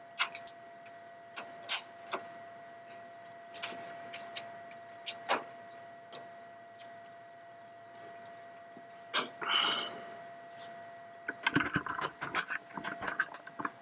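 Dell OptiPlex 755 desktop computer running with its case open while Windows 7 loads: a steady high whine with scattered sharp clicks. Near the end, a flurry of knocks and rustles as the camera is handled.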